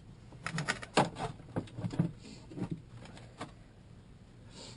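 Zoeller M53 sump pump being handled and set down into a sump pit: a string of irregular knocks and clunks for the first three seconds or so, then quieter handling sounds.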